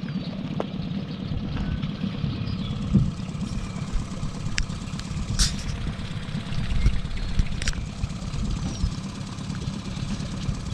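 Small tiller outboard motor on an aluminium boat idling with a steady low rumble, with a few sharp knocks over it.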